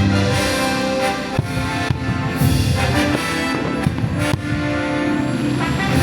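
Orchestral fireworks-show music with brass, loud and continuous, with a few sharp firework bangs cutting through it.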